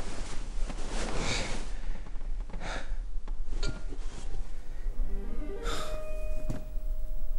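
A man gasping and snorting as he breathes heavily, with several loud breaths a second or more apart. Faint held tones join in about five seconds in.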